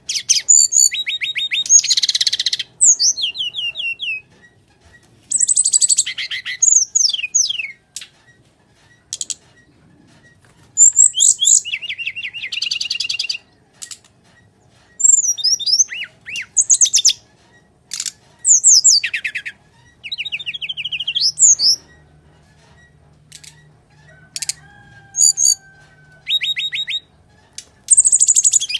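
Brown-chested jungle flycatcher (SRDC) singing in full fighting mode: bursts of a second or two of high-pitched rapid trills, chattering notes and sharp whistles, about a dozen phrases with short pauses between them.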